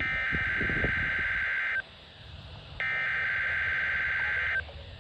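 Emergency Alert System SAME header on NOAA Weather Radio: two harsh, buzzing digital data bursts, each just under two seconds long with about a second's gap between them, the encoded opening of a Required Weekly Test.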